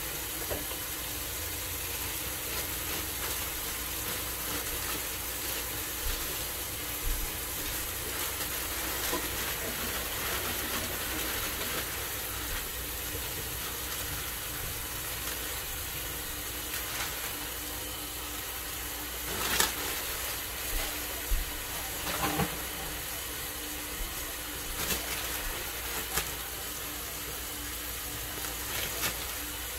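Kitchen tap running steadily into a stainless steel sink, a constant hiss of falling water. Several brief crinkles of plastic produce bags come past the middle as the bagged greens are handled and emptied into the sink.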